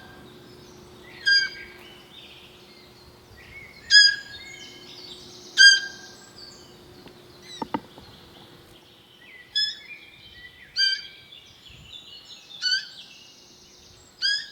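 Roe deer fawn giving short, high-pitched peeping calls, repeated every second or two, with birds chirping faintly behind.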